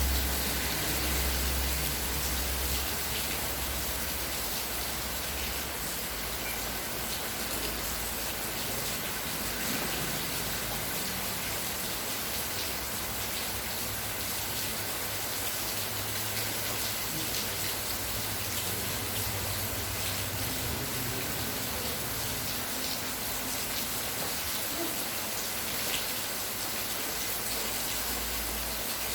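Rain falling steadily, an even, dense hiss of drops, with a low rumble underneath during the first few seconds.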